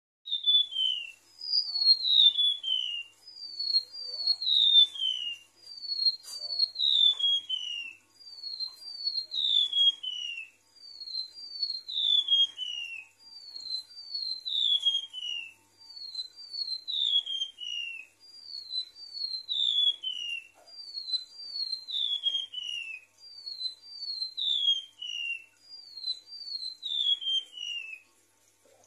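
Golden-bellied gerygone (remetuk laut) song: a thin, high whistled phrase of two or three notes, each sliding downward, repeated a little over two seconds apart.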